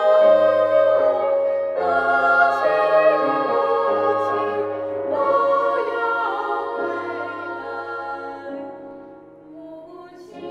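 Slow song sung by a choir, with long held notes; it fades away near the end.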